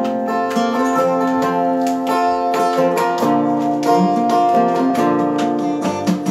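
Two acoustic guitars playing the instrumental intro of a song, picked and strummed in a steady rhythm.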